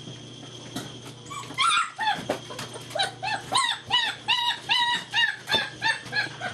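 German Shepherd puppy giving a quick series of short, high-pitched yelps, about three a second, starting about a second and a half in.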